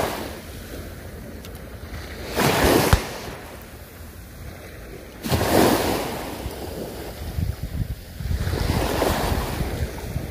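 Small waves washing onto the beach, three surges that swell and fade, over a steady low rumble of wind on the microphone.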